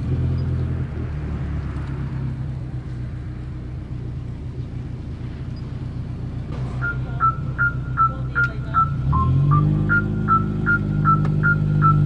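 Bass-heavy music played loud through a VW Saveiro's aftermarket car audio system, freshly re-tuned with a new amplifier and crossover; the deep bass dominates. About seven seconds in, a high repeating beeping figure joins, about four notes a second, and near nine seconds the bass line shifts higher.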